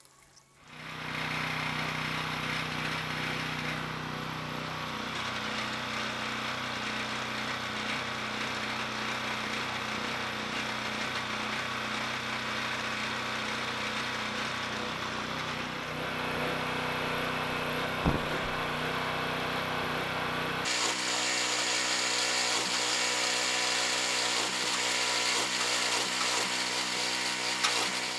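Pressure washer running steadily under load as it pumps water into the capped compressor tank for a hydrostatic pressure test. Its sound changes about three-quarters of the way through, turning brighter and hissier.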